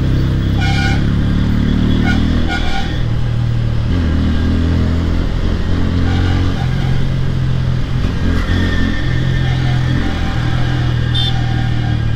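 Bajaj Pulsar N160's single-cylinder engine running hard under the rider, its note holding, then stepping to a new pitch every couple of seconds as he works the gears through traffic. A few short high beeps sound in the first three seconds and again near the end.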